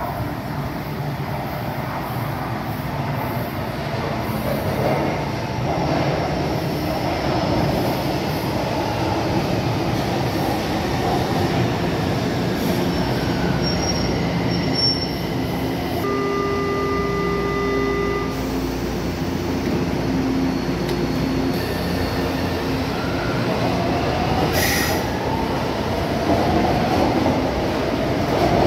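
São Paulo Metro train running through an underground station: a steady rumble of wheels on rail with squealing. A held tone lasts about two seconds a little past the middle, and a rising whine comes near the end.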